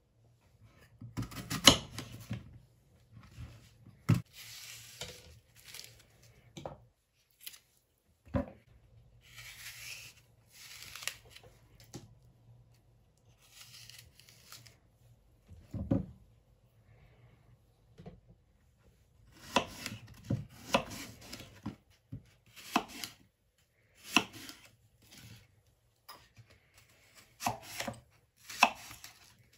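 Kitchen knife cutting and coring Golden apples on a wooden cutting board: crisp slicing strokes through the apple flesh and sharp knocks of the blade on the board, coming irregularly with pauses between them and thicker in the second half.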